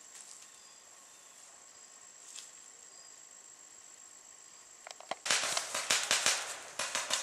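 Insects keep up a steady high drone, then about five seconds in, paintball markers open fire in a rapid, irregular string of loud pops.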